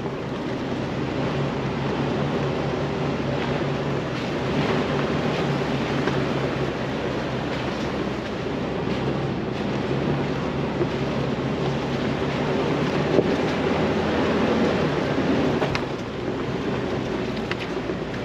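Jeep Wrangler TJ engine running steadily at a constant low pitch as it drives a rough off-road trail, with a few short clicks and knocks over the engine noise.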